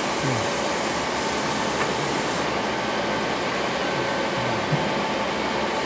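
Lapping machine running: a steady motor whir with a few faint steady tones in it, and one brief low bump about four and a half seconds in.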